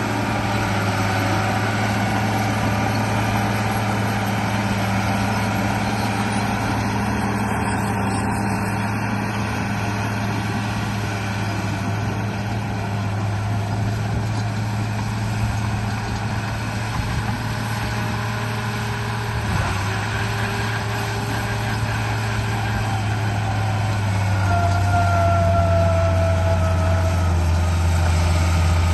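Remote-control bulldozer running: a steady low engine-like drone, with a higher motor whine joining in and the sound growing a little louder near the end.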